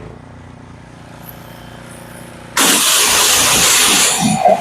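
Pressure washer motor running steadily with the trigger released, then the spray comes on suddenly about two and a half seconds in as a loud, continuous hiss of water jetting.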